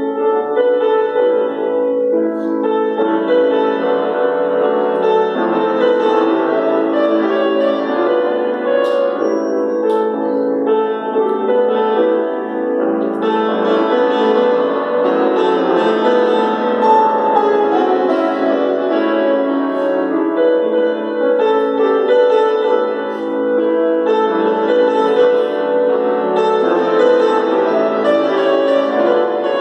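Solo grand piano played live: a continuous, unbroken stream of notes.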